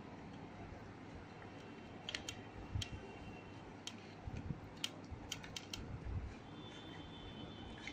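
Scattered short clicks and light taps of a hand and a whole fish against a steel plate as turmeric is rubbed into the fish, starting about two seconds in.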